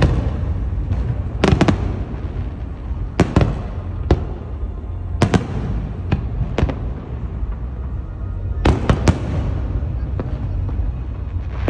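An aerial fireworks display: shells bursting in sharp bangs every second or two, some in quick pairs, over a continuous low rumble.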